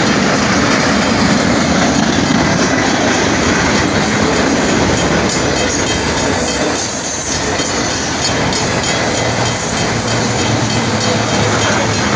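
A freight train's cars passing close by, a loud steady rumble with the wheels clattering over the rail joints.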